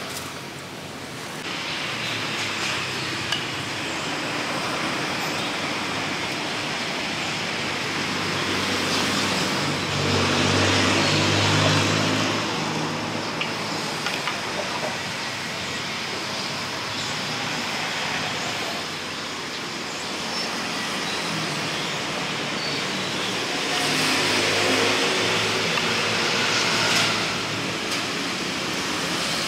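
Road traffic: a steady hum of passing cars and motorbikes. Vehicles go by louder about ten seconds in and again near the end.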